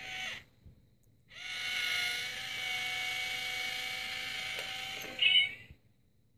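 Itazura Kitty Cat coin bank's small electric motor whirring steadily for about four seconds as the toy cat pushes up the lid and reaches out for the coin, with a brief high-pitched sound near the end before the motor stops.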